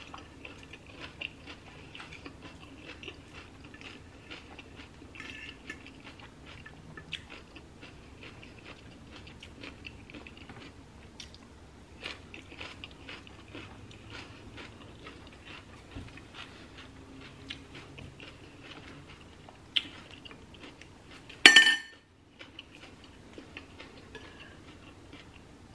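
Close-up chewing and crunching of a chopped raw cabbage salad, with small clicks of a fork. About 21 seconds in there is one short, much louder noise.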